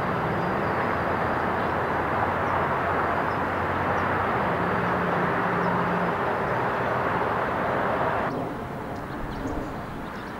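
Diesel engine of a wheel loader at a sand quarry running and changing pitch as it loads sand into a hopper, over a steady rushing noise from the plant. The sound cuts off suddenly about eight seconds in, leaving quieter outdoor background with a few faint chirps.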